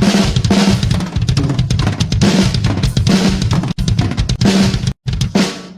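Drum kit played fast and hard, kick drum, snare and cymbals hitting together in a dense run; it stops with a last hit that rings out and fades near the end.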